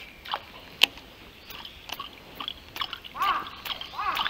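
Pencil popper lure jerked across the water surface with the rod, giving short sharp splashes, the loudest just under a second in. From about three seconds in, a bird calls over and over, each call rising and falling in pitch.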